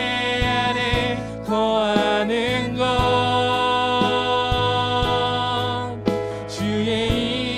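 Live worship band playing a slow praise song: a drum kit keeping a steady beat under bass and piano chords, with a singer's voice rising over it briefly in the middle.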